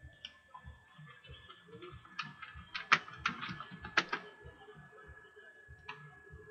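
Computer keyboard typing: a quick run of key clicks, with a few louder keystrokes around the middle, as a search is typed into a browser. A faint steady high tone sits underneath.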